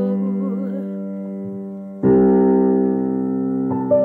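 Slow piano accompaniment holding sustained chords: the first chord fades while a sung note with vibrato trails off in the first second, then a new chord is struck about two seconds in, with a few higher melody notes near the end.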